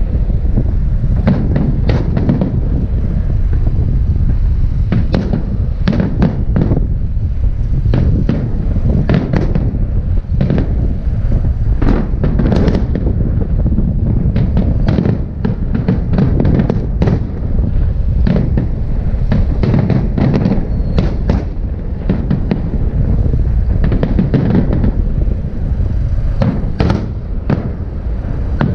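Festive fireworks salute: aerial shells bursting one after another, many sharp bangs and crackles overlapping over a steady low rumble.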